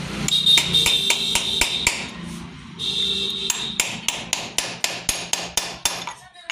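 Light, rapid metal-on-metal tapping, about three to four taps a second, as the coil plate of a Hero CD Deluxe engine is knocked gently into its seat in the crankcase with a tommy bar. A steady high whine runs in the background through parts of the first half.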